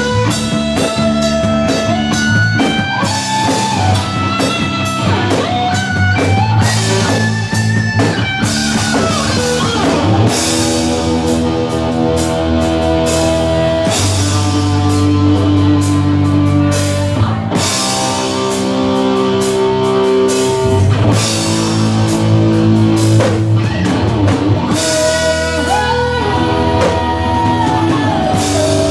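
Live rock band playing electric guitar, bass guitar and drum kit, with a woman singing.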